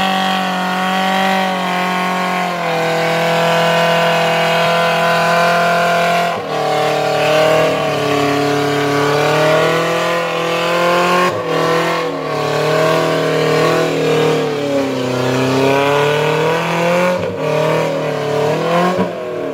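Suzuki Jimny engine revving hard under load on a muddy climb. It holds one steady high note for about six seconds, then rises and falls over and over as the throttle is worked, with brief breaks twice.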